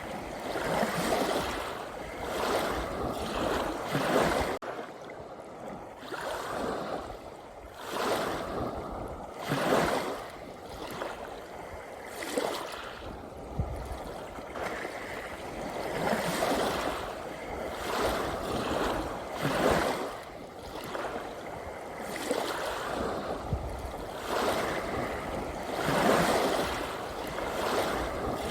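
Ocean waves washing onto the shore in repeated surges, swelling and falling back every couple of seconds.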